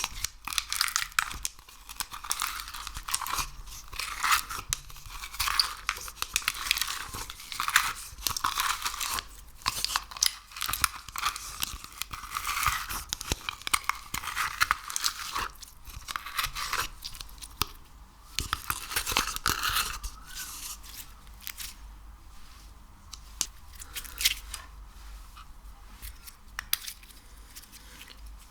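Sticky material, slime-like, squeezed and pulled by hand, with dense crackling and popping clicks. The clicks thin out to sparse ones about two-thirds of the way through.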